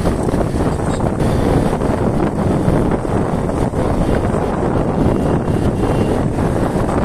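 Wind rushing and buffeting over the microphone of a moving motorcycle, a steady loud noise with the ride's road and engine sound mixed in.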